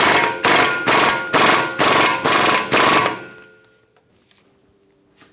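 Impact wrench hammering an axle nut down in about seven short trigger bursts, roughly two a second, for about three seconds, then stopping.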